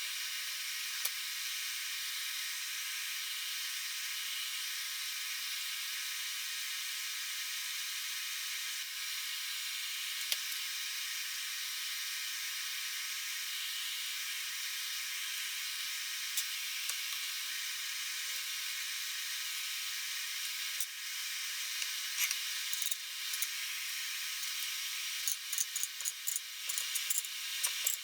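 Steady hiss throughout, with a few isolated sharp clicks. Near the end comes a quick run of small clicks and knocks, as of hard parts being handled.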